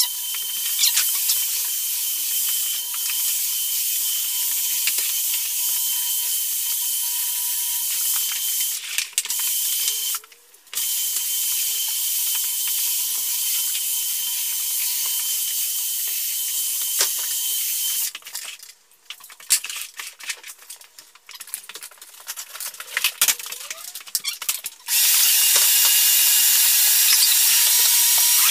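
Floor-sanding machine running steadily with a high whine over a hiss. It breaks off abruptly about ten seconds in, then again after about eighteen seconds, when a spell of irregular clicks and knocks follows before it runs steadily again.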